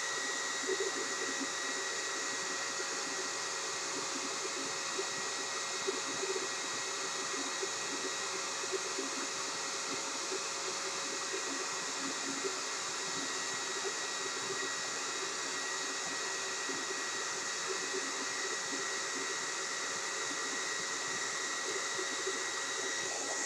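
Hair dryer blowing steadily, a rush of air with a thin high whine running through it.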